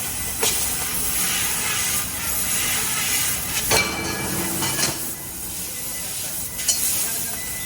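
Fiber laser tube cutting machine at work: a steady hiss of the assist-gas jet at the cutting head, with a few short knocks and clicks.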